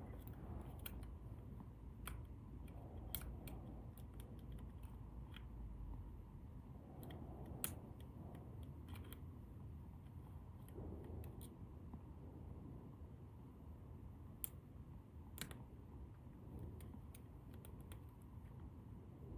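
Small, irregular metallic clicks of a lock pick and tension tool working the sliders inside an ASSA Desmo lock, a few of them louder, over a faint low hum.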